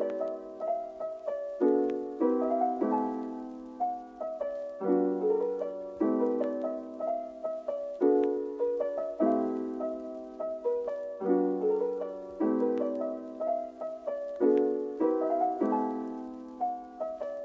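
Soft background piano music: gentle chords and a simple melody, a new note or chord about every second, each fading away.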